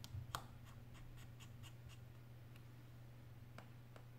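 Faint clicks and light ticks from fingers handling an opened iPhone 8 Plus's internal parts and flex connectors: one sharper click about a third of a second in, a quick run of light ticks after it, and two more clicks near the end, over a steady low hum.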